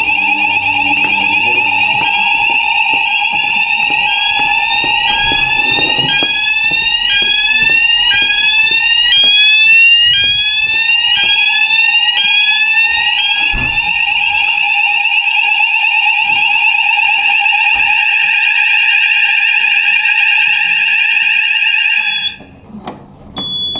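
Building fire alarm sounders going off together during a call-point test: steady piercing tones layered with a rising sweep that repeats about once a second through the first half. All of it cuts off abruptly about 22 seconds in, followed by a few clicks.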